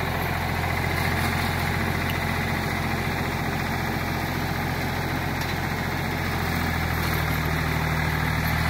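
Old Ford farm tractor's engine running loudly and steadily while the tractor drives with a front loader full of snow; the engine note grows louder and a little higher about seven seconds in.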